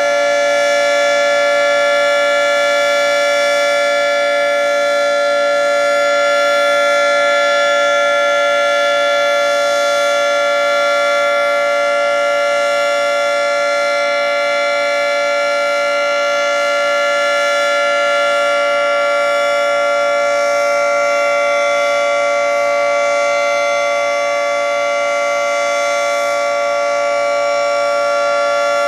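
Federal Signal 3T22 three-tone outdoor warning siren sounding its steady full-alert signal: a loud held chord that does not rise or fall in pitch, its loudness swelling and fading slightly.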